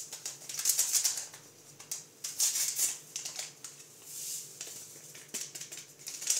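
Small paper sachet of vanilla being torn open and shaken out over a mixing bowl: a dry crinkling rustle in a series of short bursts.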